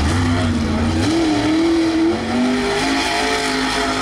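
Mud race truck engine revving hard. Its pitch climbs about a second in, holds, drops just after two seconds, then runs steady, over a heavy low rumble that fades after the first second.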